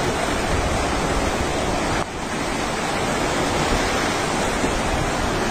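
Swollen floodwater rushing through a river channel: a steady, even rush of water noise, dropping briefly about two seconds in.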